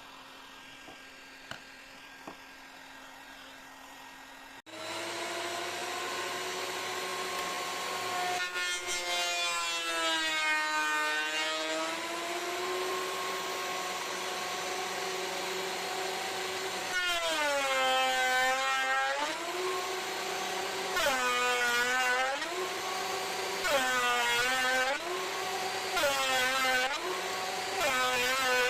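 An electric power tool starts up about five seconds in and runs on wood with a steady whine. In the second half its motor pitch sags and recovers again and again, a few seconds apart, as it is pushed into the cut and eased off.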